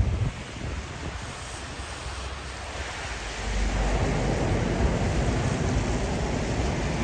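Outdoor city street noise, a steady rushing that grows louder about three and a half seconds in.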